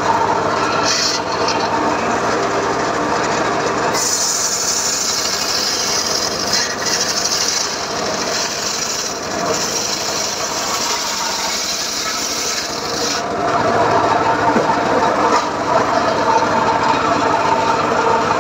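Homemade engine-driven circular sawmill (srekel) running, its big blade ripping a slab off a teak log: a steady machine drone with a harsh high hiss of the cut from about four seconds in until about thirteen seconds, after which the blade runs on with the motor louder.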